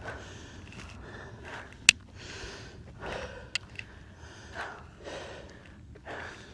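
A person breathing hard from the effort of climbing a steep hill: heavy breaths, roughly one a second. A few sharp clicks come through, the loudest about two seconds in.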